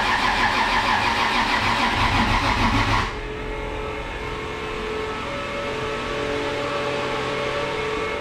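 Starter cranking a freshly rebuilt Toyota 2JZ engine in quick rhythmic pulses for about three seconds without it firing, then stopping abruptly; the battery is too weak to turn it over properly. A quieter steady background sound with a faint held tone follows.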